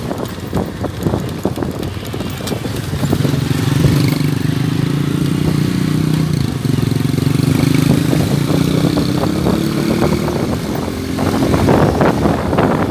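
Small motorcycle engine running at a steady cruise along a dirt road, its note rising slightly about ten seconds in. Rough wind and road noise fills the stretches at the start and near the end.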